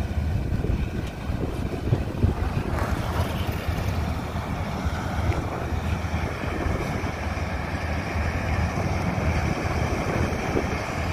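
Combine harvester running as it cuts standing wheat: a steady mechanical drone, with wind buffeting the microphone.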